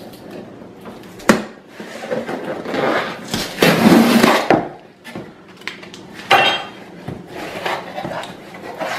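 Cardboard shipping box being opened by hand: a blade slitting the packing tape, then tape tearing and cardboard flaps pulled open, with scraping and rustling. The loudest tearing comes about three to four and a half seconds in, with sharp knocks about a second and a half and six seconds in.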